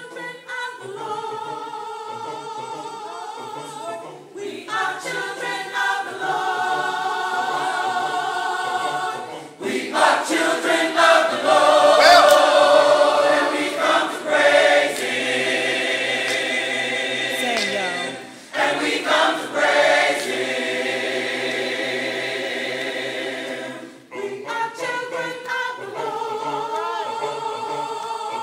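Large mixed choir of men and women singing gospel in harmony, holding long chords in phrases of a few seconds with short breaks between them. The choir swells loudest about a third of the way through.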